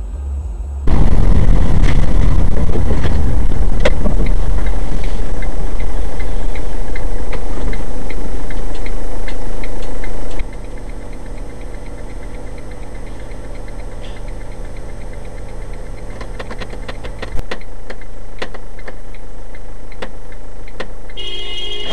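Car engine and road noise as picked up by dash cameras, steady within each clip and changing level abruptly where clips are cut: it jumps up about a second in, drops about halfway through, and shifts again with a brief knock later on.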